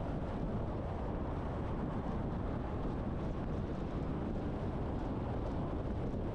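Steady low road rumble of a semi truck on the move: engine and tyre noise, unchanging throughout.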